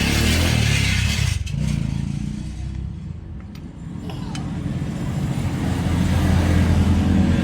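A motor vehicle engine running nearby, loud at the start, easing off about three seconds in, then building up again toward the end. There are a couple of faint clicks in the middle.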